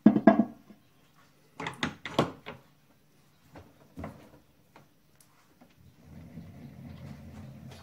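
Metal clunks and clicks as the lathe's tool post and tool holder are handled and set, several sharp knocks in the first few seconds. From about six seconds in a low steady hum comes up underneath.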